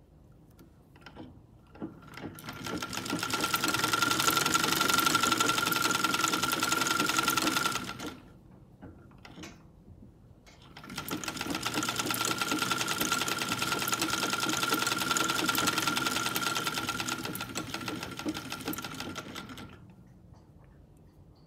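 Vintage Singer sewing machine running in two long runs, the first about six seconds and the second about nine, each speeding up at the start and winding down at the end, with a steady whine over the rapid mechanical chatter. A few small handling clicks fall before and between the runs.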